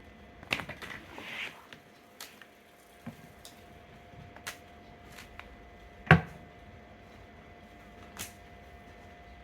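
Scattered handling clicks and knocks, with a cluster in the first second or so and one sharp, loud knock about six seconds in, over a faint steady hum.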